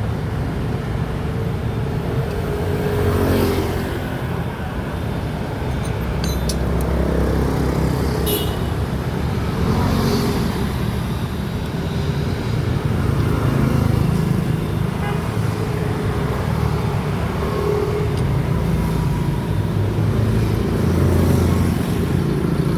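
Steady road traffic noise, swelling every few seconds as vehicles pass, with a few short clicks.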